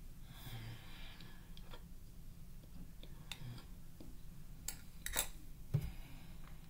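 Metal spoon scraping through cornstarch in a glass measuring cup and clicking against the glass, with several sharp clicks in the second half.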